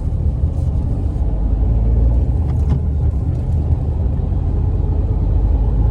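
Steady low rumble of a moving road vehicle heard from on board, with a couple of faint clicks about two and a half seconds in.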